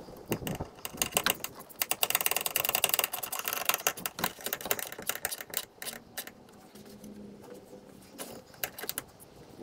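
Hose clamp on a new intercooler hose being tightened with a long-shafted hand tool: rapid ratcheting clicks, densest in the first half, then scattered clicks.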